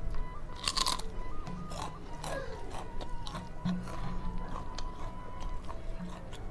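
Close-up mouth sounds of a crispy emping melinjo cracker being bitten and crunched, the loudest crunch about a second in, followed by smaller crunches and chewing. Background music plays under it.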